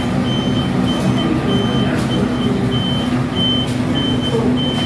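An electronic beeper sounding over and over, a short high beep roughly every half second, above a steady low hum of commercial kitchen equipment.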